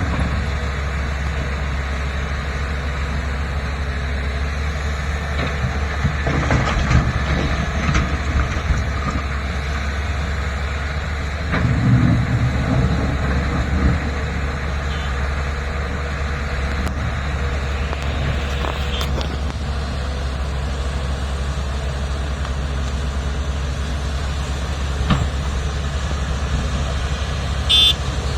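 Heavy diesel earthmoving machinery, excavators and dump trucks, running steadily with a deep engine rumble. Occasional knocks and a louder low surge come about twelve seconds in, and a brief high squeal near the end.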